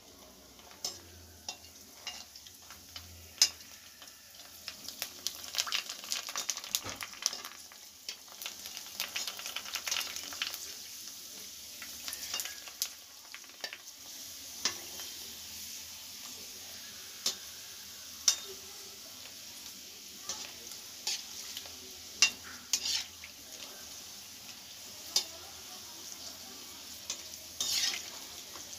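Panipuri puris deep-frying in hot oil in a steel kadai: a steady sizzle with many sharp ticks and pops, louder for several seconds in the middle, with a metal slotted spoon stirring and scraping in the pan.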